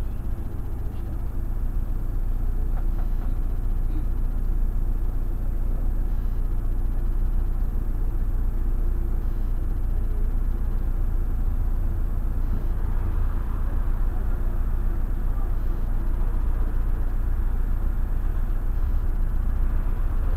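Irisbus Crossway LE 12.8M city bus on the move, heard from on board: a steady engine rumble with road noise. It grows a little louder about two seconds in.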